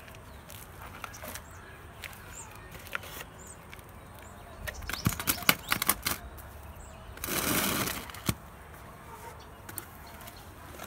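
Handling noises from potting work: scattered sharp clicks and knocks, a quick cluster of them about halfway through, then a short rustling hiss lasting under a second.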